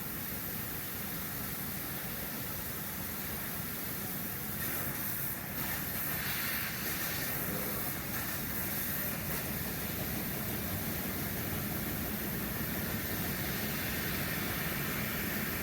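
Sheet-metal laser cutting machine running while it cuts holes in parts: a steady mechanical hiss, getting louder and brighter for a few seconds about five seconds in.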